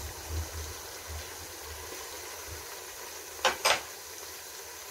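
Tomato-and-onion masala simmering in a pan with a faint bubbling hiss and a low rumble. About three and a half seconds in come two sharp clicks, a fifth of a second apart.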